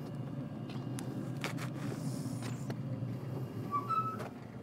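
Lid of a Z Grills pellet smoker being lowered shut, its hinge giving a short squeak near the end, with a few light clicks of metal before it. Under this there is a steady low rumble that fades out shortly before the squeak.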